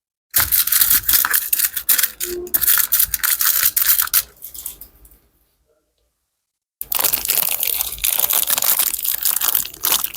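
Some material being crushed and crumpled close to the microphone, a dense crackling made of many fine cracks. It fades out about halfway through, stops for a couple of seconds, then starts again.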